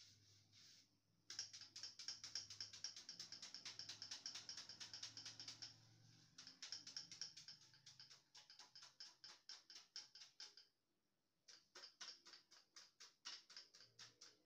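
Rapid, evenly spaced clicking, about six clicks a second over a faint low hum, breaking off for about a second near the end before resuming.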